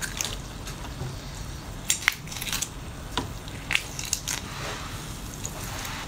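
Cooked tiger prawn being peeled by hand: its shell cracks and snaps in a string of sharp clicks, mostly from about two seconds in, with wet squishing from the sauce-covered flesh.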